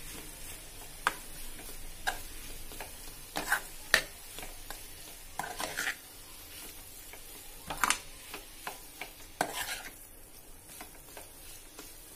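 Metal spatula scraping and clinking against a steel pan as crumbled paneer with tomatoes and spices is stirred, in irregular strokes about once a second. A faint sizzle of frying runs underneath.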